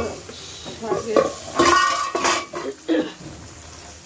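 Kitchen pans and utensils clattering, with a few knocks and a short ringing clang of metal in the middle, as a wooden spatula stirs a steaming pan of cooking lentils and greens; under it runs a steady sizzle of frying.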